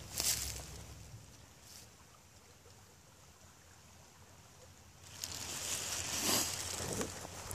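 Dry leaf litter rustling and crunching. A short rustle comes at the start, then faint outdoor background, then rustling that builds from about two-thirds of the way in, with a couple of louder crunches near the end.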